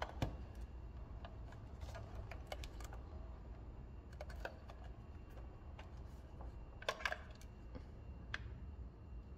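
Plastic case of a Sony Dream Machine clock radio being handled and turned over: scattered light clicks and taps of the casing and its buttons under the fingers, the loudest pair about seven seconds in, over a low steady hum.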